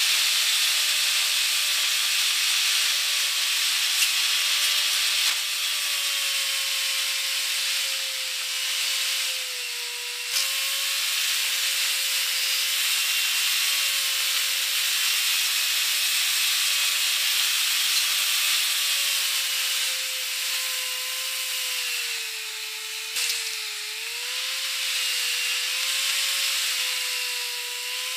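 Driving noise of a 1991 Saab convertible with the top down, played fast-forward: wind and road rush turned into a high hiss, over a steady whine that slowly wavers in pitch. A few sharp clicks come through, near a third of the way in and again late on.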